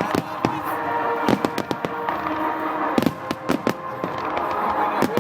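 Fireworks going off in quick succession: many sharp bangs and crackles over a steady background noise.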